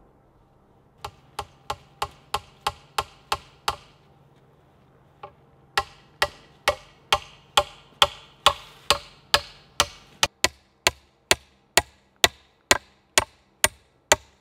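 Hammer driving a nail through a wooden rail pole into an upright post: sharp, ringing strikes at about two to three a second. One run of nine strikes starts about a second in, a short pause follows, then a longer steady run.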